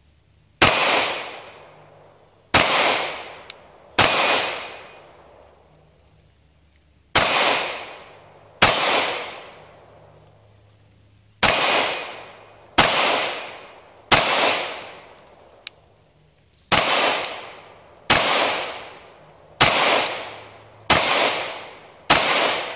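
Thirteen single shots from a Sig Sauer P226 MK25 9mm pistol, fired at an uneven pace of one every one to three seconds. Each shot is a sharp crack followed by an echo that dies away over about a second.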